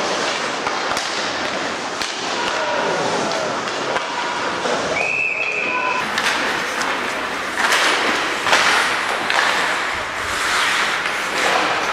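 Ice hockey play on a rink: skates scraping the ice, sharp clacks of sticks and puck hitting the boards, and players calling out, with a brief high whistle about five seconds in.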